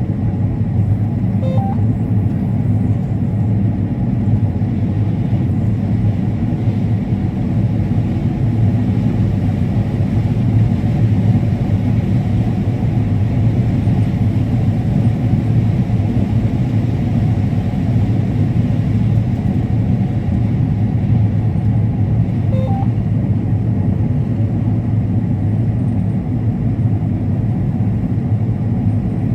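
Combine harvester running steadily under load while it harvests corn, a constant low engine and threshing rumble. Two faint short beeps sound, one near the start and one about two-thirds of the way through.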